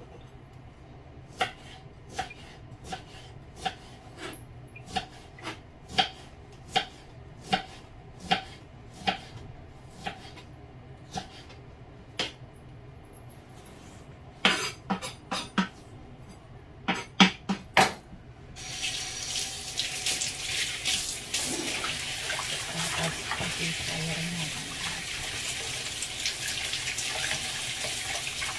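Kitchen knife chopping on a wooden cutting board, a knock about every 0.7 s, then a quicker flurry of louder chops. About two-thirds of the way through, a tap turns on and water runs steadily into a steel bowl as leafy greens are rinsed by hand.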